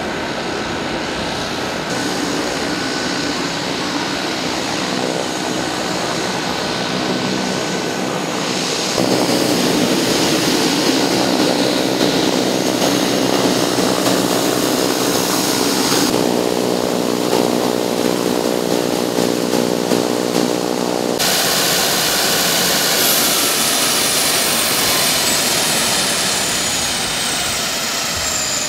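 Airliner engines running loud and steady: a constant rushing noise with a whine over it, changing abruptly every few seconds. In the last part a high whine slowly falls in pitch.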